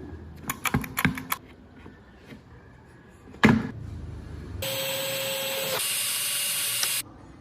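Woodworking shop sounds: a few sharp clicks of tools being handled and one loud knock. Then an electric power tool runs steadily for a couple of seconds and cuts off suddenly.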